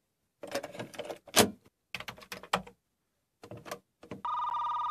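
A cassette tape is loaded into a cassette data recorder, making clusters of plastic clicks and clunks from the tape and the recorder's door and mechanism, with the loudest click about a second and a half in. Just after four seconds, a steady, high, beeping electronic tone starts.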